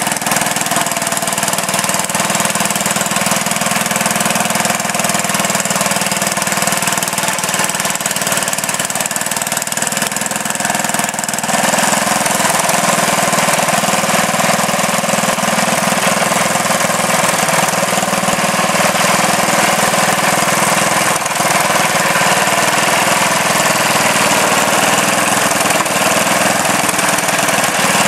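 Sears Suburban garden tractor engine running steadily under load as its front blade pushes dirt, growing louder about eleven seconds in.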